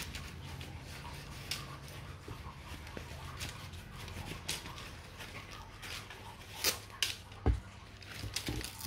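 Scattered light clicks and knocks of gear being handled, with a few louder knocks near the end, over a low hum that fades out about halfway through.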